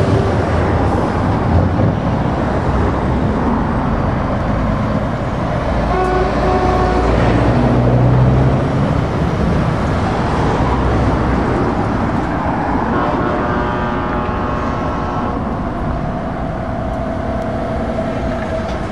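Lorries and cars passing in a steady stream of traffic, engines running with tyre noise. A horn sounds briefly about six seconds in and again, longer, around thirteen to fifteen seconds.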